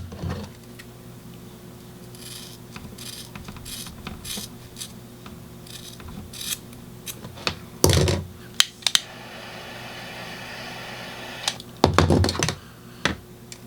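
Clicks, knocks and rustles of a nylon strap and tools being handled, with sharper knocks about eight and twelve seconds in. Between them a steady hiss lasts a few seconds, typical of a flame melting the cut end of the nylon strap.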